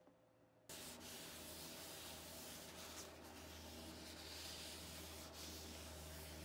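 Paper towel rubbing over a turned walnut and maple vase, wiping on an oil finish: a faint, steady rubbing that starts abruptly about a second in, after near silence.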